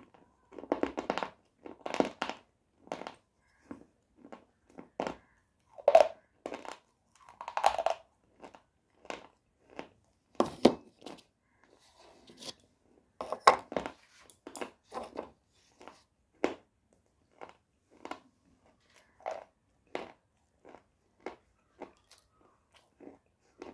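Close-miked crunching of a thick, hard white eating-slate bar being bitten and chewed: short sharp crunches, sometimes single and sometimes in quick clusters, with brief quiet gaps between.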